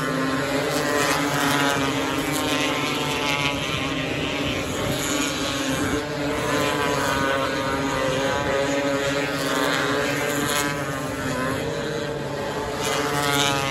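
Winged micro sprint cars' engines running laps on a dirt oval, the pitch repeatedly rising and falling as they accelerate and lift for the turns. The sound swells near the end.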